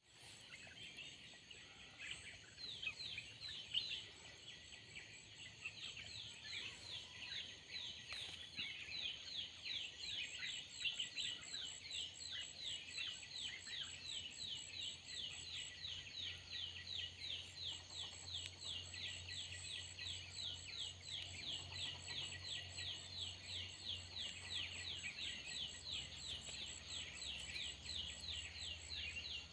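A forest bird calling a long, steady series of quick downslurred notes, about three a second, over a constant high-pitched insect drone.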